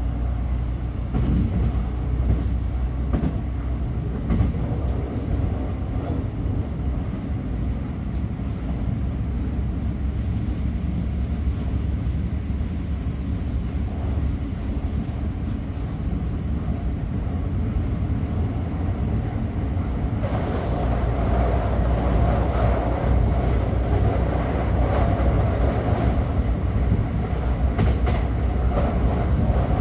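Steady low rumble of a moving train heard from inside the carriage, with some light clicks early on. A high-pitched whine sounds for about six seconds around the middle, and the rumble grows louder and fuller about two-thirds of the way through.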